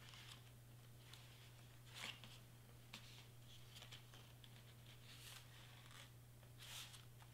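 Near silence: faint rustles of glitter cardstock being slid and pressed into place by hand, a few soft brushes at about 2 s, 5 s and near the end, over a low steady hum.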